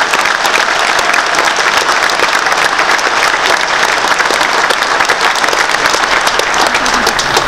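A large audience applauding steadily and densely, with hands clapping right beside the microphone.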